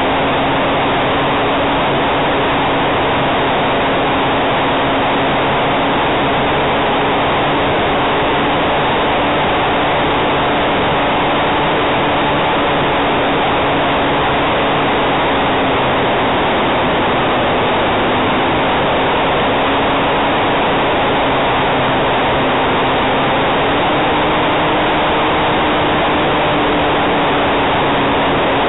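RC model Cessna 400 Corvalis in flight, heard from its onboard camera: a steady rush of airflow and propeller noise on the small microphone, with a faint motor hum that rises slightly in pitch late on.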